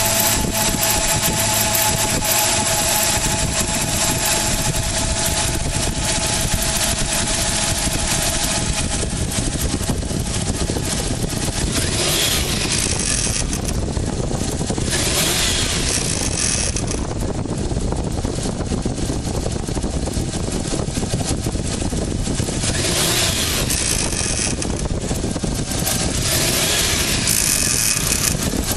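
Toyota 4Runner making an unexplained noise as it runs: a steady, loud mechanical noise with two held tones that fade out about nine seconds in, and the hiss swelling and dropping several times after that.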